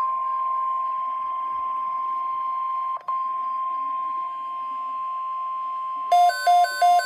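NOAA Weather Radio warning alarm tone: one steady high tone near 1,050 Hz, with a brief dropout about three seconds in. Near the end a weather alert radio's alarm breaks in over it with rapid loud beeps, about four a second, signalling that the radio has been triggered by the alert.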